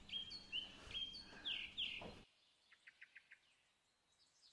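Birds chirping: short whistled notes, many sliding down in pitch. A little over two seconds in they cut off suddenly, leaving only a few faint, quick chirps.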